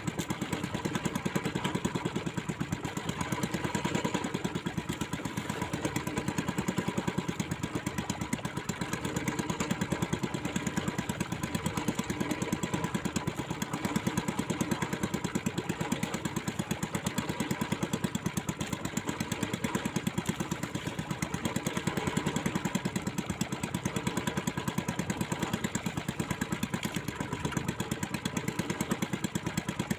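Small fishing boat's engine running steadily at slow trolling speed, with an even, rapid firing beat that does not change.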